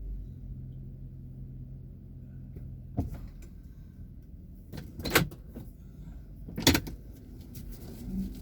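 Car idling with a low steady hum that drops away about three seconds in, then a sharp click and two loud thumps about a second and a half apart.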